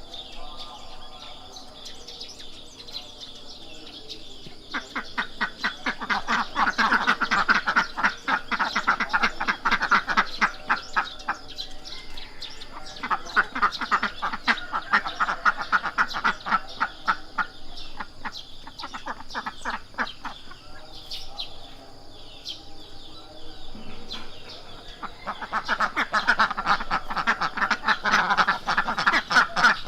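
Ducks quacking in rapid runs of several calls a second, in three long bouts with quieter stretches between, over a steady high-pitched background drone.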